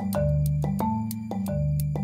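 Instrumental music: a suspicious-sounding marimba and pizzicato groove in D minor at a medium 91 bpm. Short marimba notes come about three a second over a sustained low bass line.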